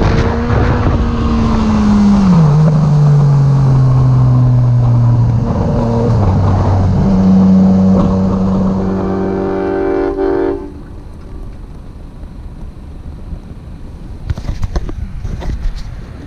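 Yamaha MT-09's three-cylinder engine as the motorcycle slows, its note gliding down and stepping in pitch, then holding steady before it drops away about ten seconds in. After that, quieter wind and road noise with a few clicks near the end.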